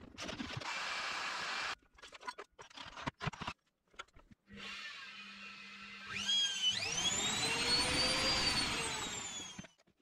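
Washing machine motor driving a lathe's headstock pulley through a belt, spinning up with a rising whine about six seconds in and running for about three seconds before fading near the end. Before it, shorter workshop handling noises: a brief hiss and scattered knocks.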